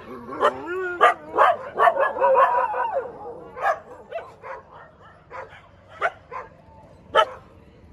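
Free-ranging street dogs barking in a territorial clash between two groups of dogs. There is a quick flurry of sharp barks mixed with high wavering yelps and whines in the first three seconds, then single barks about once a second.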